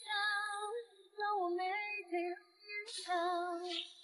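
A song with a woman's voice singing three long, slightly wavering phrases with short breaks between them, and little audible accompaniment.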